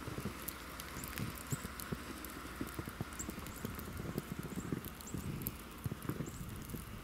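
Footsteps trudging through deep fresh snow: a run of soft, irregular crunching thuds over a faint steady hiss.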